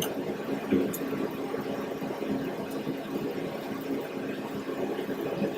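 Steady mechanical hum of a running motor, with a small knock just under a second in.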